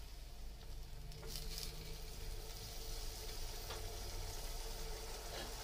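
Masala paste thinned with water, simmering in an aluminium pan with a soft, steady sizzle and bubbling. A few light taps of a wooden spatula against the pan are heard.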